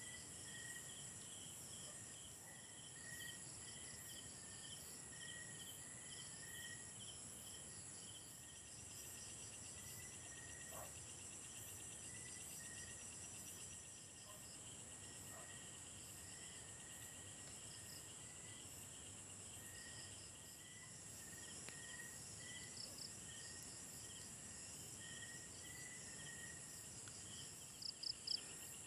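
A faint night chorus of insects: several trill steadily at different high pitches, some in quick even pulses. A few brief, sharper chirps stand out near the end.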